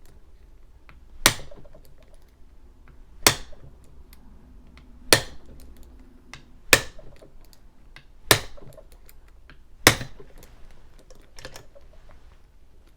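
A mallet strikes the head of a bump key in a Brinks padlock, six sharp knocks about every one and a half to two seconds with a fainter one near the end. Faint clicks of the key being reset in the lock come between them. Each strike tries to jar the pins above the shear line while light turning tension is held on the key.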